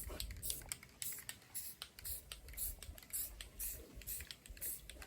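Spray painting a car fender: irregular short hisses and clicks, several a second, as light coats of paint are sprayed on.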